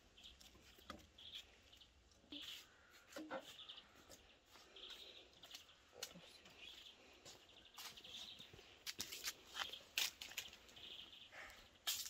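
Faint bird calls repeating every second or so, mixed with sharp clicks and snaps from dry sticks being laid into a smoking metal barbecue grill as the fire catches.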